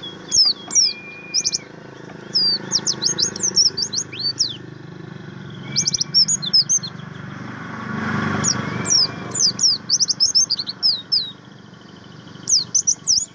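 White-eye (pleci buxtoni) song: rapid runs of sharp, high, downslurred chirps in several bursts, with a few short level whistles between, over a low steady background noise.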